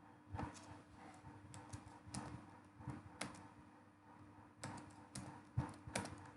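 Computer keyboard keystrokes: irregular, scattered key clicks, some in quick little runs, over a faint steady hum.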